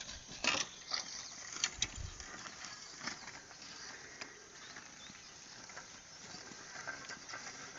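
Cattle-drawn plough working a field: scattered light knocks and clicks over a faint outdoor background, the sharpest in the first second and a dull thump about two seconds in.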